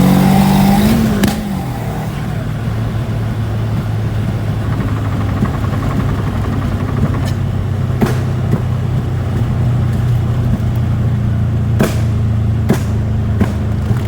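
Turbocharged Proton Wira 4G15 engine, with unequal-length headers, heard from inside the cabin: it revs up under hard acceleration for about a second, then a sharp snap as the revs drop off, followed by a steady lower engine drone while the car cruises on, with a few faint clicks.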